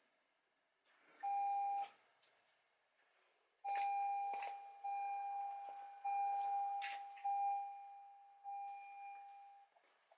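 2021 Toyota RAV4's in-cabin warning chime dinging: one ding about a second in, then a run of five dings about a second apart, each fading away, with a few faint clicks among them.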